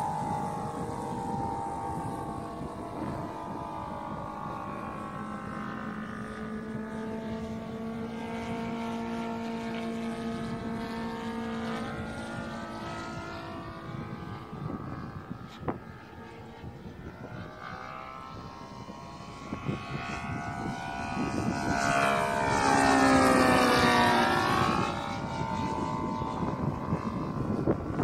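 Seagull Models Lysander II radio-controlled scale model plane flying after take-off: a steady motor-and-propeller drone whose pitch wanders as it turns. It grows louder from about 20 seconds in to a close pass near 23 seconds, where the pitch drops, then fades as it moves away.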